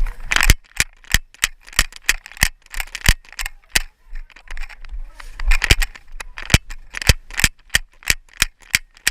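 Airsoft guns firing: about two dozen sharp shots at irregular intervals, some in quick pairs and clusters.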